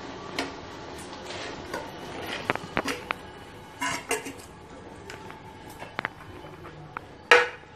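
Spoon scraping and tapping a plate as pounded aromatics are pushed off into a pot of boiling water, with scattered clinks against the pot and a few short scraping bursts.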